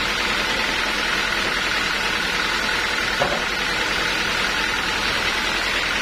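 Band sawmill machinery running steadily without cutting, with a single brief knock about three seconds in.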